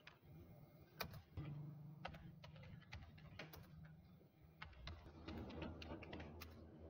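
Faint computer keyboard typing: irregular keystrokes, coming faster in the second half.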